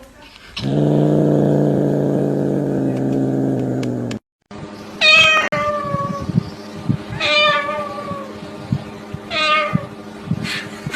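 A cat meowing three times, about two seconds apart, each meow falling in pitch. Before the meows, a long, low, steady drawn-out sound lasts about three and a half seconds and then cuts off abruptly.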